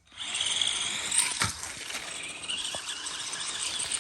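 A 1:16-scale electric RC truck, with a 390 motor, drives at speed: a steady high whine from the motor and gears over the hiss of the tyres, with two sharp knocks, one about a second and a half in and one near three seconds.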